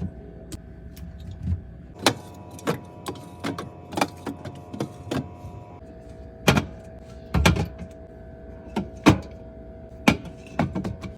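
Drink cans and bottles being set into a refrigerator, knocking and clinking against each other and the shelves in irregular sharp clacks, sometimes two or three in quick succession.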